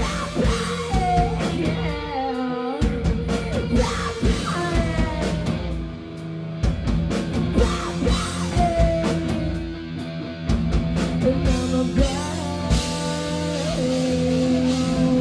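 Rock band playing live: drum kit, electric bass and guitar, with a singing voice over them.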